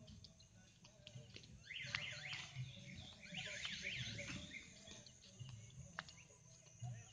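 Faint electronic warbling alarm tone, its pitch sweeping rapidly up and down, in two bursts of about a second each, the first about two seconds in.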